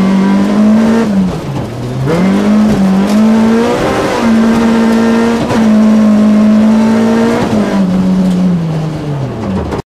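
Rally car engine heard from inside the cabin, driven hard at high revs along a stage: the revs dip briefly about a second in and climb back, hold high through the middle, then fall away steadily near the end before the sound cuts off abruptly. Road noise runs underneath.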